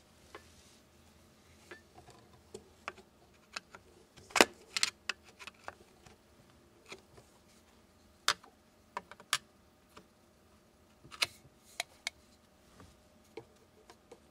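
Irregular sharp clicks and taps of hand tools on metal: a wrench and a screwdriver working the nut and screw of a wire terminal on a garbage disposal's metal bottom plate. The loudest click comes about four and a half seconds in.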